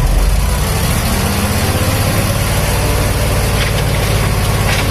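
Truck engine running steadily, a heavy low rumble with fast even pulsing.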